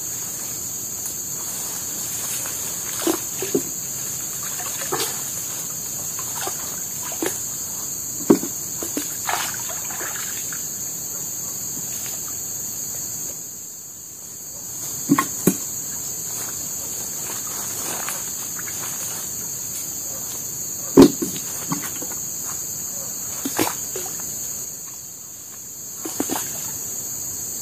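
A steady high-pitched chorus of forest insects, fading briefly twice. Scattered short knocks and small water splashes sound over it, the loudest about two-thirds of the way through.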